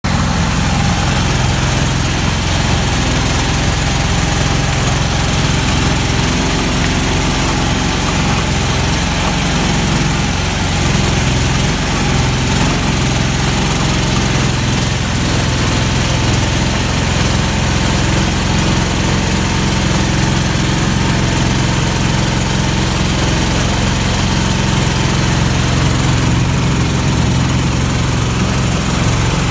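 All-terrain vehicle's engine running steadily as it drives along a muddy, rutted track, heard from inside its cab: an even, unbroken engine note.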